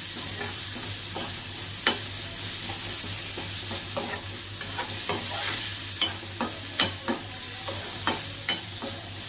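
Chicken, onion and tomato sizzling in a pan on low heat while being stirred, with irregular clicks of the ladle against the pan.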